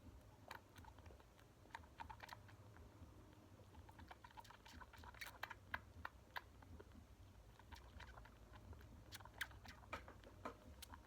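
Faint, irregular wet clicks and smacks of a neonatal bottle kitten suckling milk from a nursing bottle.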